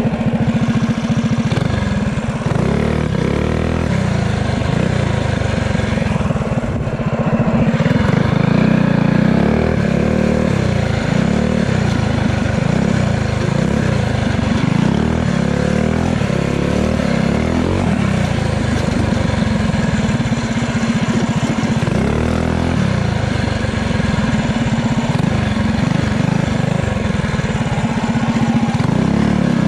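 Pit bike's single-cylinder engine running hard on a dirt trail, repeatedly revving up and falling back as the rider works the throttle, heard close from on the bike.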